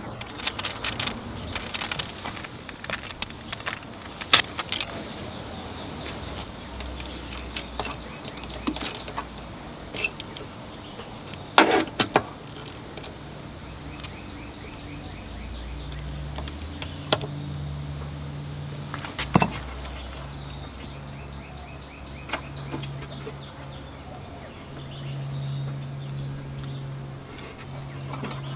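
1/4-inch-drive ratchet with an 8 mm socket clicking in short runs as the scooter's intake manifold bolts are tightened. Metal tools clink and knock against the engine parts, with a few sharp knocks.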